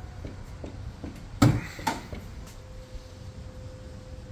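A sharp clunk about one and a half seconds in, followed by a smaller knock, as the Ford Flex's hood release is pulled and the hood latch pops open. A faint steady tone is heard in the second half.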